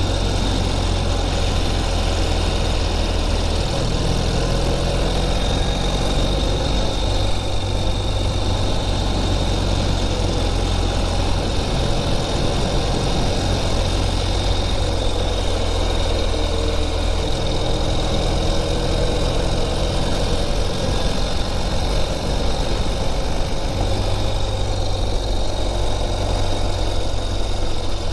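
Motorcycle engine running under way at road speed, its low note shifting a few times as the revs change, with steady wind rush on the microphone.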